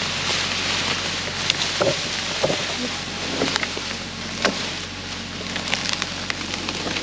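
An engine running steadily under a hiss of wind, with scattered short sharp snaps and clicks.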